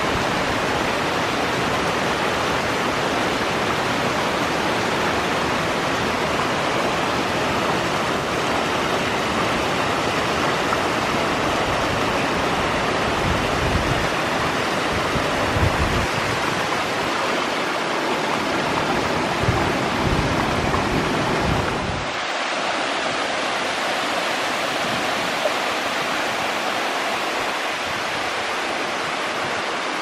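Steady rush of falling water from the creek's waterfall cascades. Low rumbles come in around the middle, and the tone changes abruptly about two-thirds through as the lowest part drops away.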